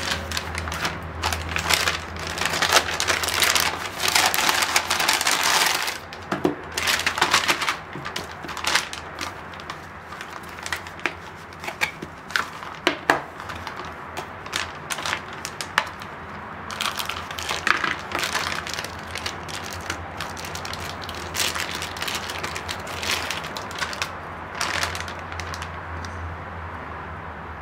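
Packaging unwrapped by hand: paper wrapping and a foil anti-static bag rustling and crinkling, with scattered sharp clicks and taps. The crinkling is dense for the first several seconds, then thins to short rustles and ticks as the circuit board is handled.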